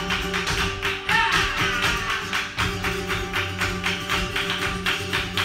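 Live flamenco alegrías: flamenco guitar playing under fast, steady percussive strikes from hand-clapping palmas and the dancer's footwork.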